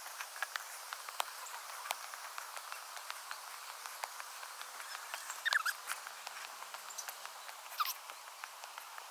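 Fast-forwarded outdoor recording of a walk: a quick, irregular patter of small clicks over a faint hiss, with a couple of brief squeaky chirps about halfway through and near the end.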